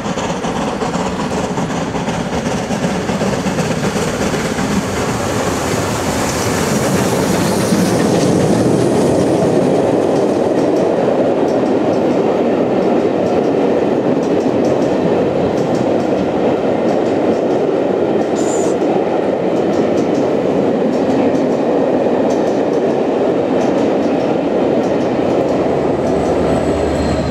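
Southern Railway Merchant Navy class steam locomotive 35028 Clan Line approaching and passing, followed by a long rake of Pullman coaches rolling by with a steady rumble and clickety-clack of wheels over the rail joints. Near the end a class 67 diesel locomotive at the rear of the train passes.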